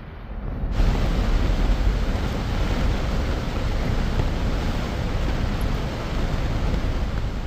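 Steady rushing noise of highway traffic mixed with wind on the microphone, growing louder and fuller about a second in.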